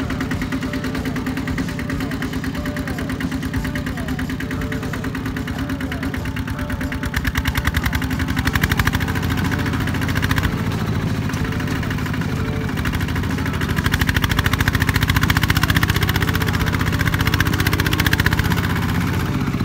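Two-wheel walking tractor's single-cylinder diesel engine running steadily under load while its front blade pushes soil. It gets louder about eight seconds in and again through the last few seconds.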